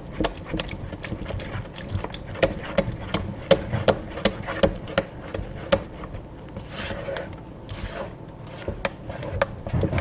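A silicone spatula stirring thin, runny batter in a stainless steel bowl: wet sloshing and squelching, with frequent irregular light knocks and scrapes of the spatula against the metal sides.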